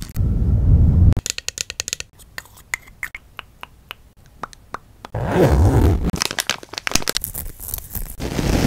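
A quick string of close-miked ASMR trigger sounds: loud rubbing against the microphone at the start and again around the middle, with runs of light fingernail taps and clicks on small plastic objects in between, and scratching near the end.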